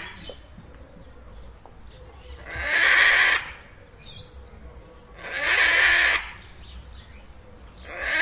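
Macaw giving loud, harsh squawks, each about a second long, repeating every two to three seconds: two full calls, with a third starting near the end.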